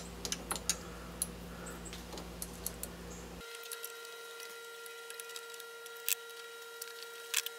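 7x14 mini lathe running and taking a turning cut on a 5-inch aluminum piece: a steady motor whine and hum with scattered sharp ticks. The hum changes abruptly about three and a half seconds in.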